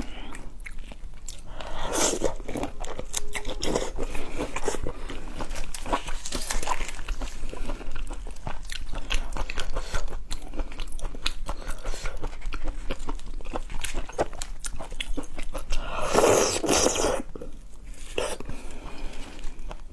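Close-miked chewing and biting of food, with many crisp crunches and wet smacks. About sixteen seconds in there is a longer, louder noisy stretch lasting around a second.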